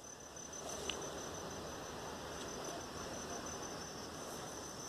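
Insects chirring: a faint, steady, high-pitched trill over quiet outdoor background noise, with one small click about a second in.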